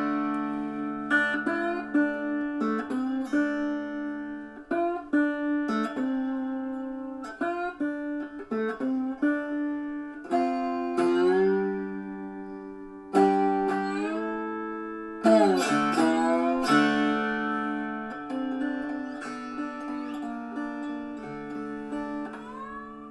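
Three-string cigar box guitar tuned D-A-D, played through an amp on its disc piezo pickup with spring reverb: picked notes over a droning open string, with a few percussive knocks on the box and notes sliding in pitch, once near the end.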